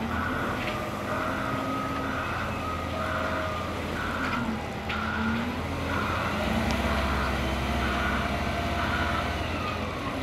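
Large boat-handling forklift running with a boat on its forks: a steady low engine drone that grows louder about six seconds in, under a repeating two-tone warning beep from the machine as it moves.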